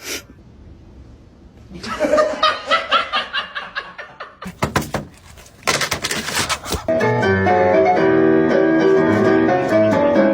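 Quick bursts of laughter, a few sharp clatters, then music with steady held notes starting about seven seconds in.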